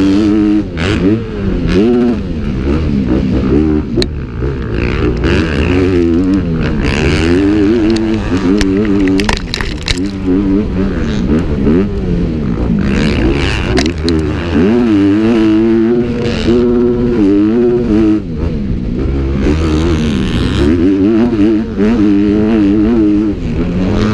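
Motocross dirt bike engine revving up and down again and again as the throttle is opened and closed, with a few sharp knocks along the way.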